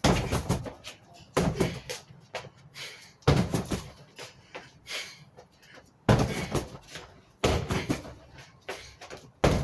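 Kicks and punches landing on an Everlast freestanding punching bag: about half a dozen heavy hits, one to two seconds apart, each dying away quickly.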